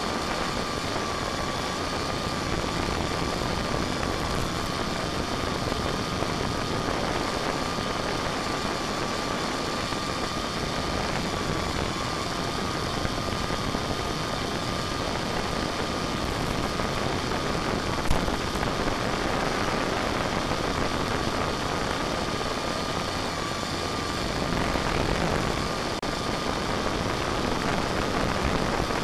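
A radio-controlled model airplane's motor and propeller running steadily, heard from its onboard camera with a thin steady whine over a dense rushing hiss. A single sharp click about eighteen seconds in.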